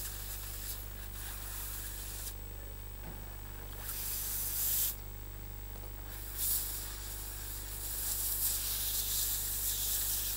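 Spotting-table steam gun hissing in three bursts, the last the longest, as it gently steams perborate bleach into a curry stain in the fabric.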